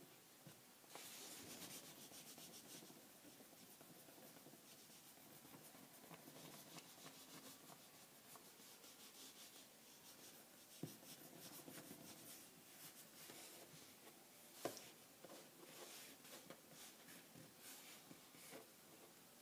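Faint rubbing of fingertips rolling a thin strand of polymer clay against a desktop, with two light taps about halfway and two-thirds of the way through.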